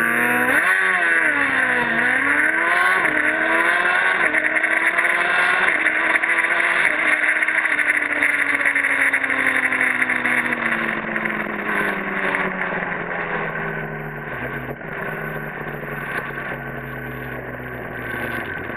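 Drag-racing motorcycle launching at full throttle and accelerating hard, with several quick upshifts, each one a sudden drop in engine pitch, over heavy wind rush on the onboard microphone. From about ten seconds in the engine note falls slowly as the bike eases off and slows down.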